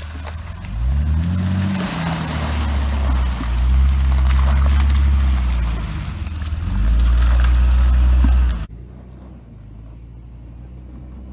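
Jeep Cherokee engine revving in three surges, rising and falling in pitch, as the 4x4 churns through a frozen mud puddle, with water and broken ice splashing around the tyres. Near the end the sound cuts off abruptly to a quieter, steady engine hum.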